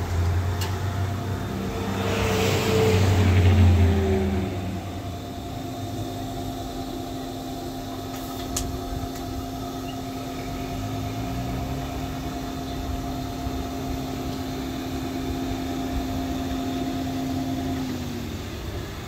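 A motor vehicle passes on the road, loudest about three to four seconds in. Under it, the grill's small electric blower fan hums steadily, then winds down and stops near the end.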